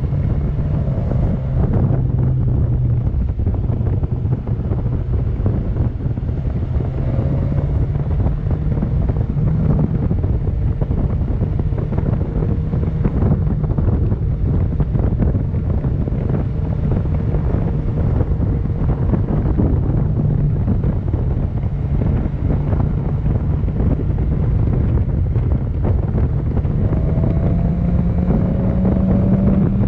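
Wind rushing over the microphone with the BMW S1000XR's inline-four engine running underneath as the motorcycle cruises. The engine note holds steady, then climbs near the end as the bike speeds up.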